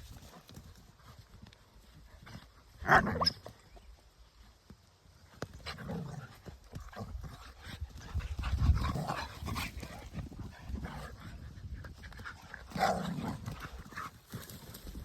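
Dogs playing together, with a loud short bark about three seconds in and another near the end, and low thumping and scuffling in between.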